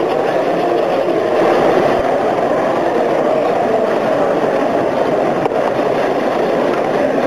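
American Flyer S gauge model trains running on the layout's track: a steady whir and rumble of locomotive motors and wheels on the rails.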